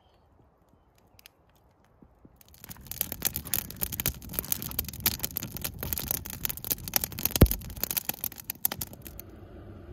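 Wood campfire of split logs crackling and popping, starting a couple of seconds in, with one loud pop near the end.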